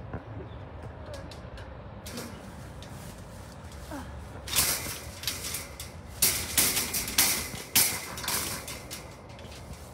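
Metal wire cage parts rattling and clanking as they are worked into place by hand: quiet at first, then a run of sharp clatters and knocks in the second half.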